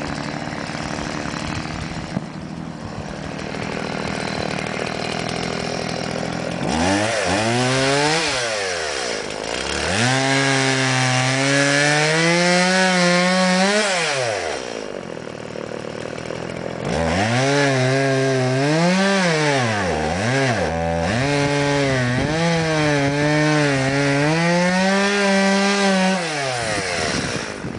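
Stihl MS-170 single-cylinder two-stroke chainsaw cutting logs: three times the engine revs up to full throttle, its pitch sagging and wavering as the chain bites into the wood, then drops back down between cuts.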